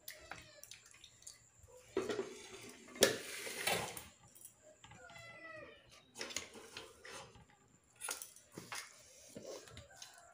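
Eating at a table: fingers mixing rice and curry on a steel plate, with steel dishes clattering and clinking, loudest about two to four seconds in and again near eight seconds. A short wavering cry, like an animal's, is heard about five seconds in.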